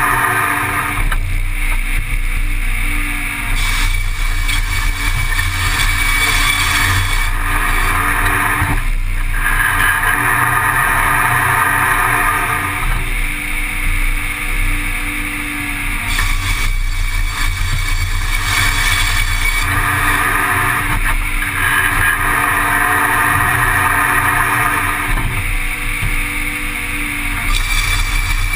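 Slidetec circular sawmill running: the large saw blade and its feed rollers drone steadily, and a harsher, higher cutting sound sets in several times for a few seconds as boards are fed through the blade, then drops back to the blade running free.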